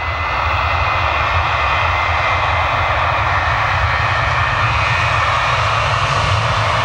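Boeing 737 jet engines at takeoff power during the takeoff roll: a loud, steady rush with a high whine over a low rumble.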